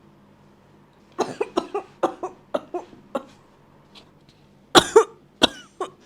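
A woman's put-on coughing fit, a grandmother's tuberculosis cough acted for a scammer: a quick run of about eight short hacking coughs starting about a second in, a pause, then two or three harder, louder coughs near the end.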